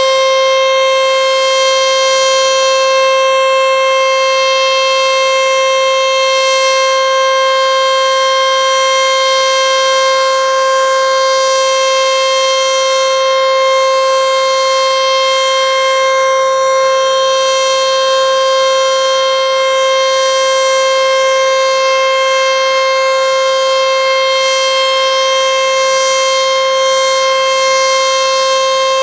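ACA Screamer S-5 outdoor warning siren sounding at full speed during a test: one loud, steady, unbroken tone that holds its pitch without rising or falling.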